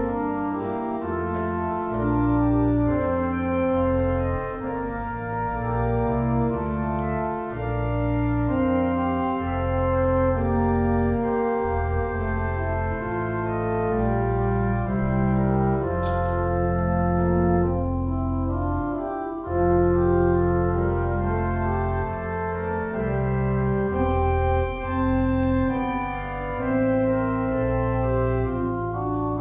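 Church organ playing slow, sustained chords over deep pedal notes, the chords changing every second or two: the postlude closing the service.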